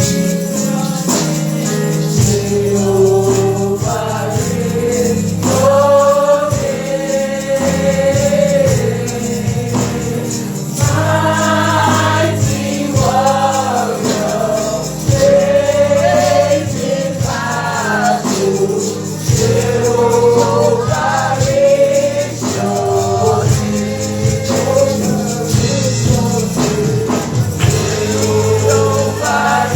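Gospel worship music: voices singing a melody over held bass notes and a steady percussion beat.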